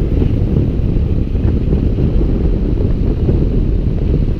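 Wind buffeting the microphone on a motorcycle at motorway speed, a steady low rumble mixed with the bike's engine and road noise.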